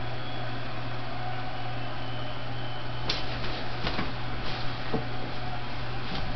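Ballpark crowd noise from a TV broadcast heard in a room: a steady hiss over a constant low hum, with a few sharp knocks between about three and five seconds in.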